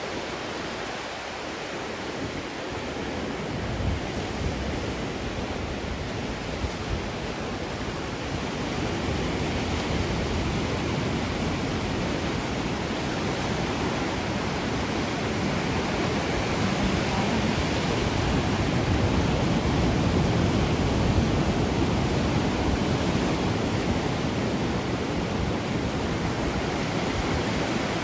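Ocean waves washing on a shore, a steady rush of surf that swells about a third of the way in and eases a little near the end.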